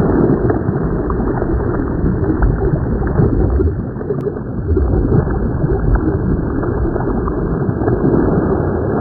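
Steady rush of water with gurgling and sloshing, with a few faint clicks through it.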